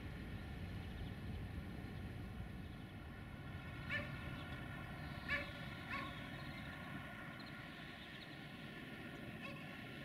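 Steady low outdoor rumble with three short animal calls about four to six seconds in and a fainter one near the end.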